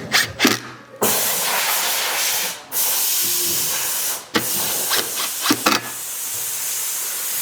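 Cordless impact driver running in long runs as it drives Phillips head screws, with a short break twice, after a few sharp clicks of parts being handled at the start.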